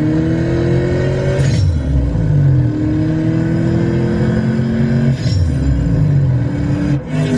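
A road vehicle's engine accelerating, heard from inside the cabin. Its pitch climbs steadily and drops sharply twice, about a second and a half in and again about five seconds in, as the transmission shifts up.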